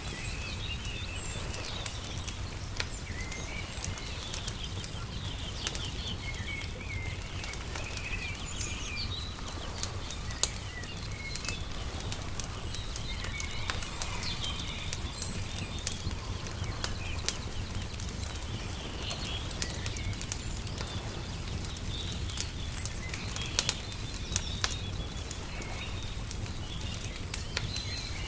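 Wood fire crackling with scattered sharp pops and snaps, over small birds chirping and a steady low rumble.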